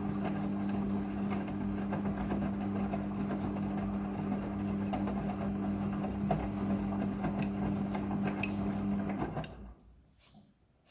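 Midea front-loading washing machine running with a steady motor hum and churning noise during its rinse cycle, which stops about nine and a half seconds in, followed by a couple of faint clicks.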